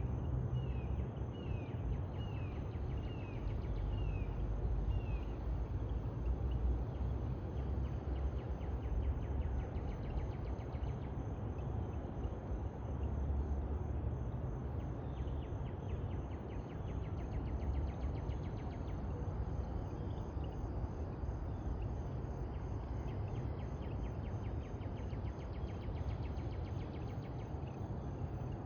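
Dawn chorus: a steady high pulsing insect trill throughout, a bird giving a series of about six short falling calls in the first five seconds, and rapid frog-like chirping in the middle. A strong low rumble runs underneath.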